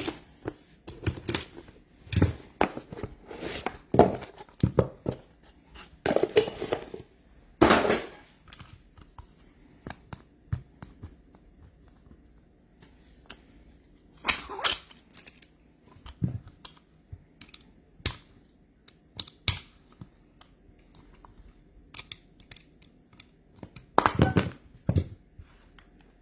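Card-box packaging being torn open and wrappers crinkling, with the sharp rustle and click of trading cards being handled, in irregular bursts: busiest in the first several seconds, then sparser, with further bursts about halfway through and near the end.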